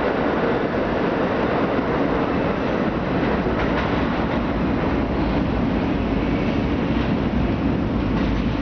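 R32 subway train pulling out of the station and running away down the tunnel: a steady rumble of wheels and running gear that fills the underground platform.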